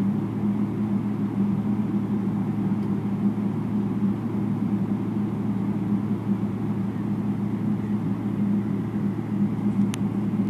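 Steady airliner cabin rumble with a constant low hum while the plane taxis on the ground, heard from inside the cabin. A faint click or two near the end.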